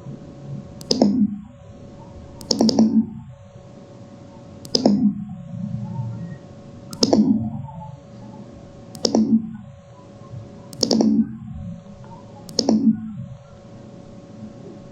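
Music with held tones, broken by seven sharp hits, each ringing out briefly, spaced roughly two seconds apart.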